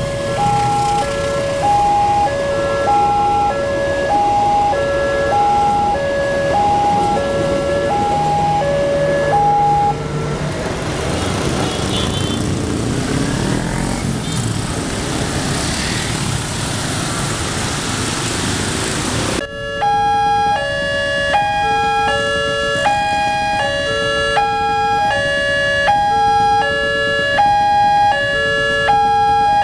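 Indonesian railway level-crossing warning alarm: an electronic siren repeating a pattern of a few alternating tones about once a second, until it stops about ten seconds in. Road traffic and motorcycle engines follow. Then, after an abrupt cut, the alarm's tone pattern is sounding again for the last third.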